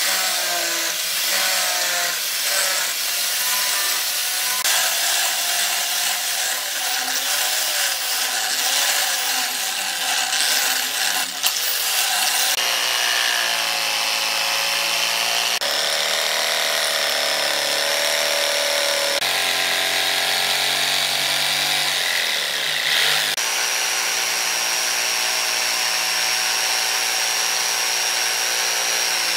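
Electric angle grinder with a sanding disc grinding a steel knife blade, its pitch wavering as the load changes. About twelve seconds in, it gives way abruptly to an electric jigsaw cutting through a wooden plank and running steadily.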